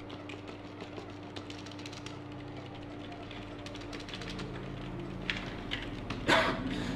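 Scattered clicks of computer keyboard typing over a steady hum. A low drone swells in about four seconds in, and a loud, harsh burst of noise breaks in near the end.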